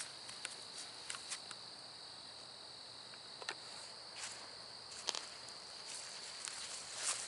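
Steady high-pitched chorus of night insects, with scattered light crackles of steps on the leaf-littered trail.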